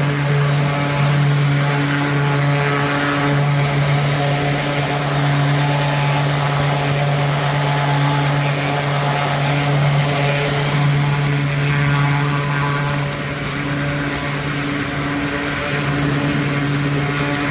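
Gas-engine pressure washer running steadily: an even engine drone with a constant hum and a steady high hiss of spray above it.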